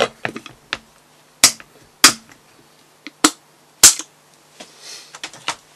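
Clip-lock plastic storage tub being shut and handled: four sharp, loud plastic snaps, spaced about half a second to a second apart, as the lid's clips are pressed closed, with lighter clicks and rustling around them.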